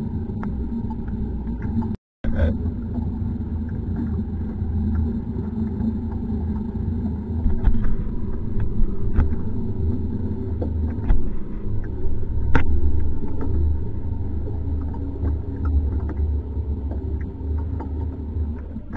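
A motor running steadily with a low rumble, with a few light knocks scattered through it. The sound cuts out completely for a moment about two seconds in.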